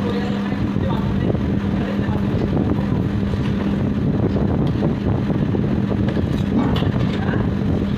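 Steady roar of a commercial dosa griddle station, with a low steady hum running through most of it and a few light clicks.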